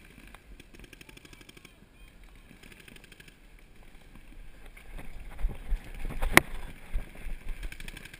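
Paintball markers firing in rapid strings of faint pops across the field. From about five seconds in there are close bumps and scuffs, then one sharp, loud crack a little after six seconds, the loudest sound here.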